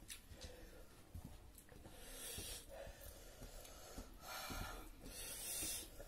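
Faint eating sounds from people eating by hand: chewing and small hand and plate noises, with several short breaths through the nose.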